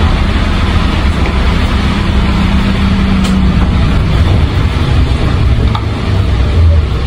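Isuzu Erga city bus (2KG-LV290N3) with its diesel engine running as it drives along, heard inside the cabin as a steady low drone with road noise. About four seconds in the engine note drops to a lower hum.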